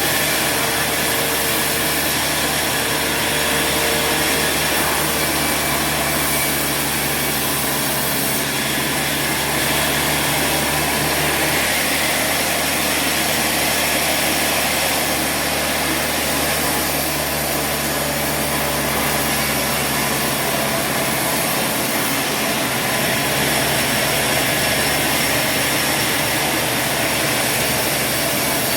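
Sawmill machinery running steadily: a constant low engine-like hum under an even hiss, with no clear start or stop.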